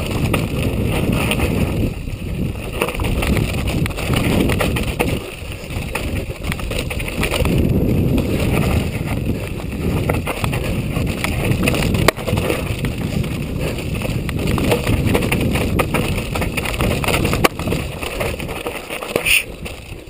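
Wind rushing over a rider-mounted camera's microphone and a mountain bike's tyres rolling over loose rock on a fast descent, with frequent knocks and clatters as the bike rattles over the stones.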